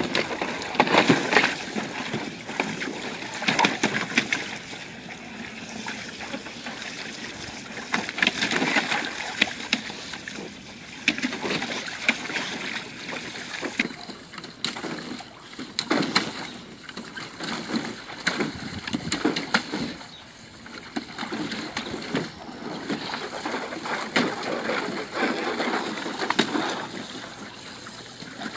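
A boxer dog splashing and sloshing in the shallow water of a plastic kiddie pool, pawing and dunking its head after a floating toy ball, in irregular bursts of splashing.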